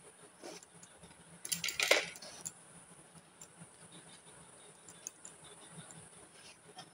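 A green vegetable being cut by hand on a bonti blade: scattered faint cutting ticks, with one louder crunching, scraping cut about a second and a half in.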